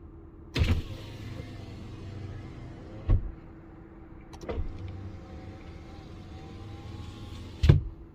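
A car's power window motor runs twice, for about three seconds each time. Each run starts and ends with a thump, and the last thump, as the glass stops, is the loudest.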